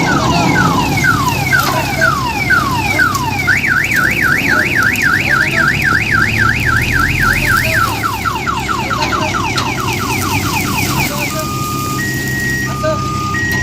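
Electronic multi-tone vehicle alarm siren cycling through its patterns: repeated falling sweeps, then a fast up-and-down warble, then quicker falling chirps, then two alternating steady beep notes near the end. Beneath it runs a steady low engine rumble.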